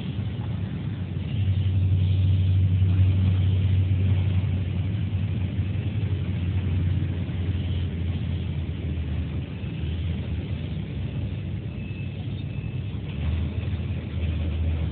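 A road vehicle's engine running, heard as a steady low rumble that grows louder from about a second and a half in until about five seconds, and again near the end.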